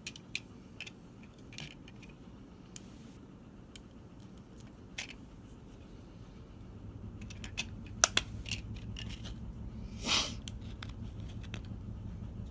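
Small plastic parts of a toy candy washing machine being handled, with scattered clicks and scrapes. About seven seconds in, a low steady hum starts, followed by two sharp clicks and a short hiss.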